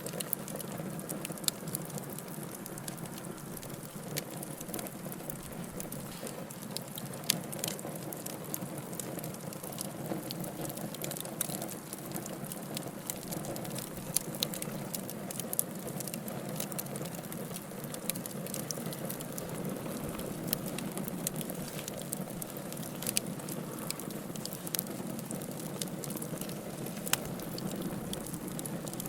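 Wood fire crackling in a fireplace: a steady low rush with frequent small pops and snaps scattered throughout.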